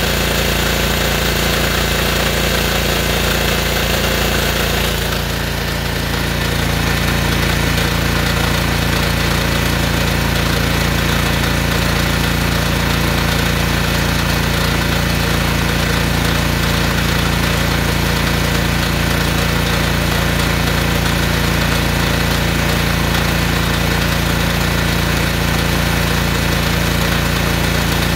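Small single-cylinder Honda engine of a gas pressure washer used as a drain jetter, running steadily under load while driving the pump. A higher hiss over the engine drops away about five seconds in.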